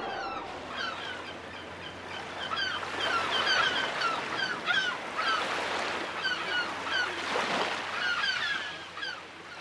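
Gulls calling, many short, sharp calls overlapping, over a steady rush of wind and sea. The rush swells briefly about seven seconds in.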